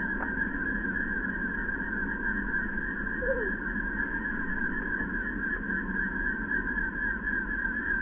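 Steady outdoor ambience: a constant drone with a steady higher band over a low rumble, and one short falling sound about three seconds in.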